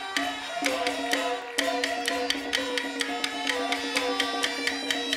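Live accompaniment music for Taiwanese glove puppetry: traditional percussion with ringing gongs and cymbals struck in a quick, steady beat.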